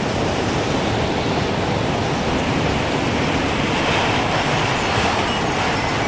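Gusting wind blowing steadily, swelling into a stronger gust about two-thirds of the way through. A few faint wind chime notes begin near the end.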